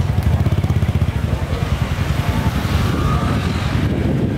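A small engine running steadily with a low, rapid throb, with faint voices around it.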